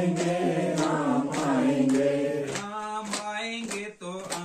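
Group of voices singing a Hindi devotional bhajan to Lord Ram together, with sharp percussive strikes keeping time. About two-thirds through, the singing thins to a single, more broken vocal line.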